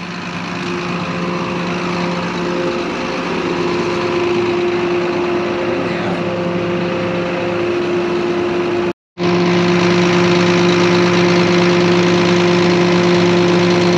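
Tractor engine idling steadily, with an even, unchanging hum. It drops out completely for an instant about nine seconds in, then carries on the same.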